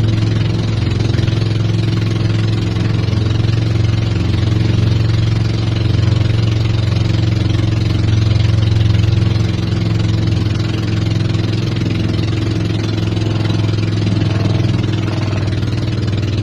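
Engine of a motorized wooden outrigger boat running steadily under way, a constant low hum, with water rushing along the hull.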